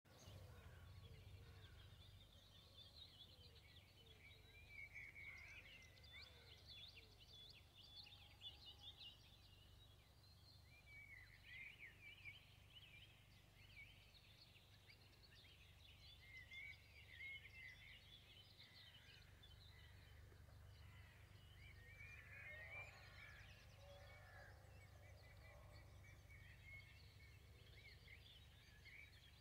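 Faint morning birdsong from several birds, many quick chirps and trills, over a steady low background hum.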